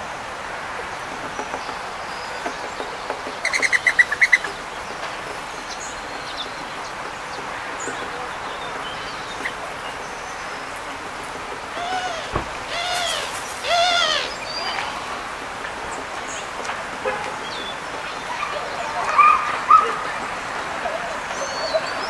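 Wild birds calling and chirping over steady background noise: a fast rattling call about four seconds in, then a run of arching calls in the middle, with scattered chirps throughout.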